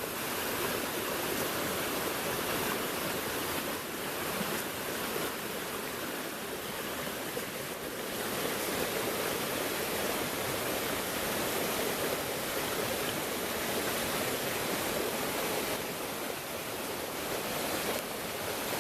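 Waterfall, water rushing and splashing steadily.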